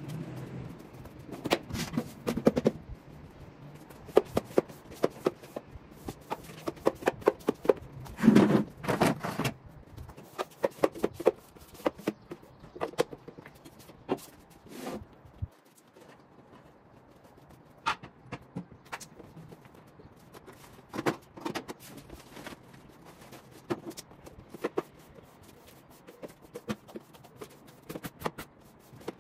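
Irregular knocks, clatter and scraping of objects being handled and moved about. It is busiest in the first ten seconds and sparser after that.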